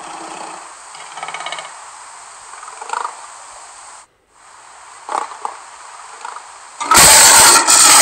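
Recorded lion sounds from an animated 3D lion: quieter growls in the first seconds, then a loud roar about seven seconds in, broken by a brief pause.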